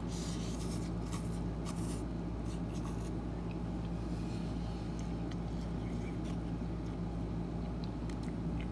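Eating a mouthful of instant cup noodles off a fork, with short scrapes and clicks of the fork against the cup, mostly in the first few seconds, over a steady low hum.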